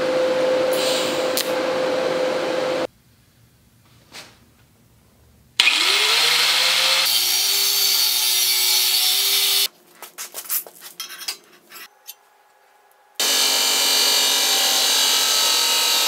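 Steel tube being worked in three short bursts of metal-fabrication noise. First a TIG welding arc hisses with a steady hum for about three seconds. After a pause, an angle grinder spins up with a rising whine and cuts steel for about four seconds. After some clicks and a pause, an abrasive chop saw cuts steel steadily near the end.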